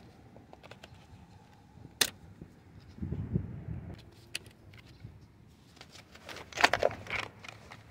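Clicks and rattles of metal parts being handled on a steering wheel's airbag mount: a sharp click about two seconds in, a low bump a second later, and a quick cluster of clicks and rattles near the end, the loudest of them.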